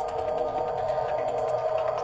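Background electronic music: a held, droning tone with faint regular ticks over it.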